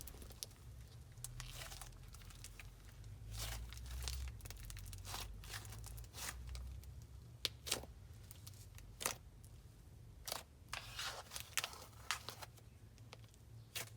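Layered icing slime being stretched and mixed by hand: faint, scattered crackles, small clicks and tearing sounds, coming more thickly in the second half.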